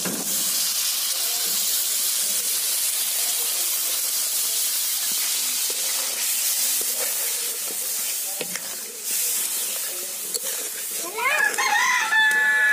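Water poured into hot oil and masala in an iron kadai, sizzling and hissing loudly as it hits the pan and starts to boil, the curry stirred with a spatula. Near the end a rooster crows loudly.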